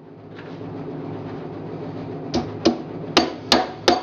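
Hammer driving 2-inch galvanized nails into the corner joints of a wooden beehive brood box. About halfway in, five quick strikes come, roughly three a second, each with a short ring.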